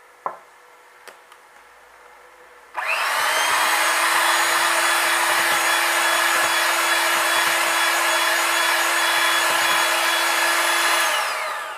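Electric hand mixer switched on about three seconds in: its motor whines up to speed and runs steadily as the beaters whisk cake batter, then winds down near the end.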